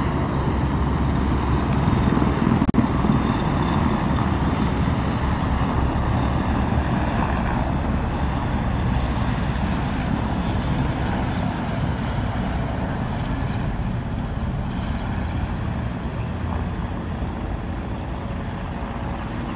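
A formation of military helicopters flying past, a steady rotor and engine drone that is loudest about two to three seconds in and slowly fades as they move away.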